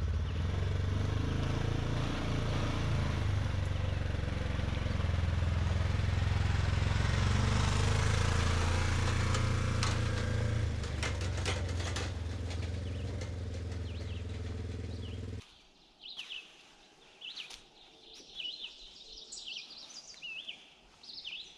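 Side-by-side UTV engine running steadily at low revs, cutting off suddenly about fifteen seconds in. Then small birds chirping.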